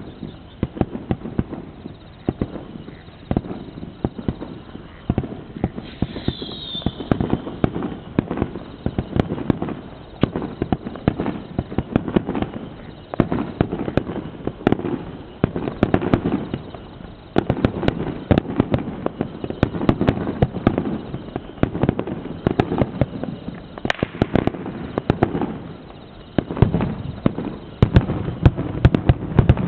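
Fireworks going off in rapid succession: a dense run of sharp bangs and crackles that starts abruptly and continues without a break, with a brief high whistle about six seconds in.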